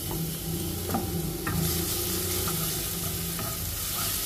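Minced garlic sizzling in hot oil in a nonstick wok as it is sautéed and stirred with a wooden spatula. The sizzle is steady, with a couple of light knocks from the spatula or board about a second in.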